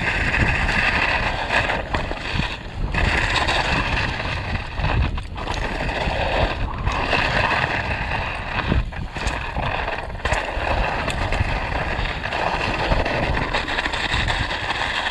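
Canyon Sender downhill mountain bike riding fast down a snowy trail: steady wind rushing over the microphone mixed with tyre noise and frequent knocks and rattles from the bike. There are a few brief dips in the noise.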